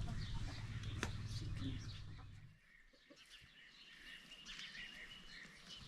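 A low steady rumble that stops about two and a half seconds in, leaving faint bird chirps and short whistled calls.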